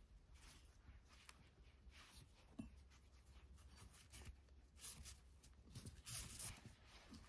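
Faint rustle and rub of nylon paracord being pulled through a macramé weave by hand, a few soft scratchy swishes, the strongest about six seconds in.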